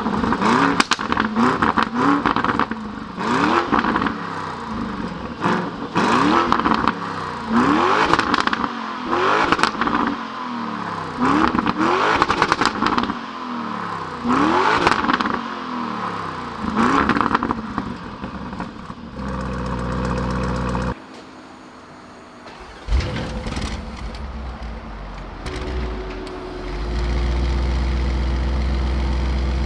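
A twin-turbo V8 performance SUV is revved in about nine short, quick blips, each rising and falling. Then it runs steadily. About two-thirds through the sound drops away briefly, a sharp burst comes back, and the engine settles into a steady idle.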